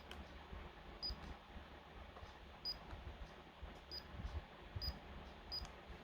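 Six faint, short, sharp clicks at irregular intervals, each with a brief high tick, over a low background hum.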